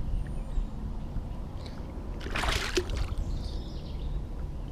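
Water splashing as a hooked largemouth bass is landed from a small boat, with one short splash about two and a half seconds in, over a steady low rumble.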